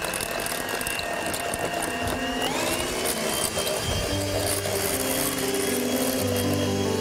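Severin electric hand mixer running with its beaters in a bowl of soft cream-cheese topping, a steady motor whine that steps up to a higher speed about two and a half seconds in. Background music comes in about halfway through.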